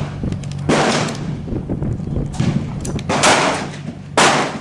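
Rifle shots at a shooting range: about four sharp reports, roughly a second apart, each trailing off in echo.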